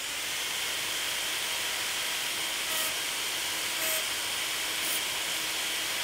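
Hairdryer fitted with a 3D-printed two-bladed fan running: a steady blowing hiss with a whine in it, coming up to speed at the start. Three short, sharper hisses about a second apart are brake cleaner sprayed into the hot air. It burns as flame with no bang.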